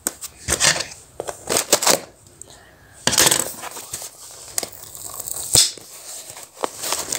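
Parcel packaging being torn and crumpled by hand as it is forced open, heard as irregular bursts of rustling and crackling with a few sharp clicks.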